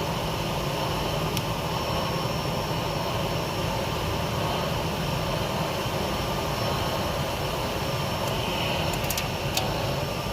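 Gas torch flame burning steadily with a constant rushing noise, as used for soldering copper tubing, with a few faint ticks about a second in and near the end.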